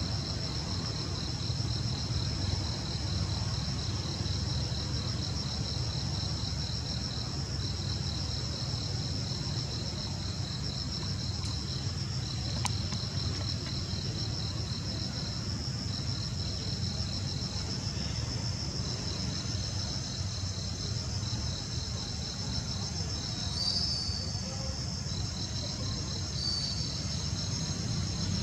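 Chorus of forest insects: a steady high-pitched drone with a second, rapidly pulsing trill that sounds in runs of about two seconds broken by short pauses, over a steady low rumble.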